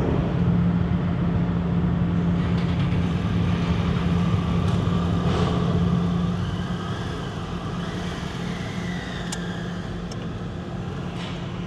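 Vehicle engines idling on a ferry's car deck: a steady low drone under a general mechanical rumble, easing off about halfway through.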